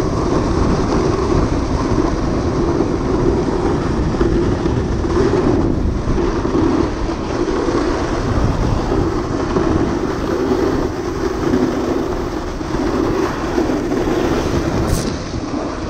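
Orange plastic sled sliding fast down a groomed, corduroy-textured snow run: a steady low scraping rumble of the sled's bottom running over the packed snow.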